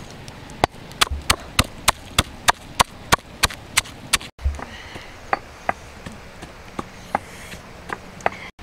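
Stone pestle pounding salt, red chillies, garlic and black peppercorns in a stone mortar: sharp, steady knocks about three a second. After a brief break near halfway, the knocks come fainter and more sparsely.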